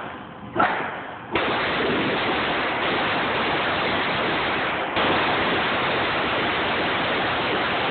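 A single 9mm Glock 17 pistol shot in an indoor range about half a second in. About a second later a steady, even rushing noise sets in and holds at a constant level, with no further distinct shots.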